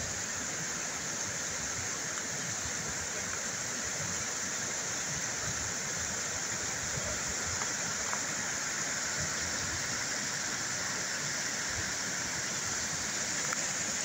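A creek's cascade rushing and splashing down chutes between layered rock ledges, a steady continuous rush of falling water.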